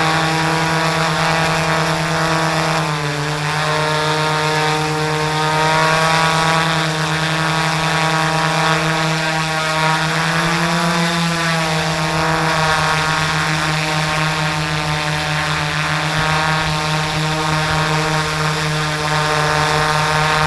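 H4 680 multirotor drone's electric motors and balanced propellers running in flight, heard from the drone's own camera: a steady buzzing hum of many stacked tones. Its pitch dips briefly about 3 seconds in and swings up and down again around 10 to 12 seconds in.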